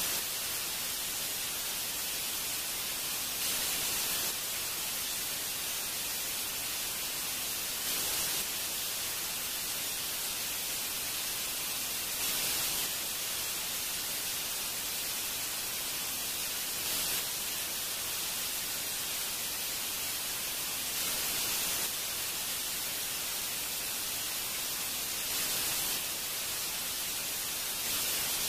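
Steady hiss like static, brighter and stronger in the upper range, swelling slightly about every four seconds.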